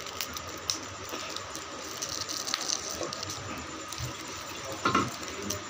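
Steady rushing hiss with a few faint clicks, and a brief louder sound about five seconds in.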